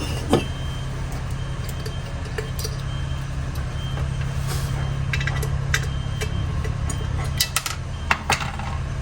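A steady low mechanical hum, with scattered small clicks and knocks of heater parts being handled, most of them bunched about five seconds in and near the end.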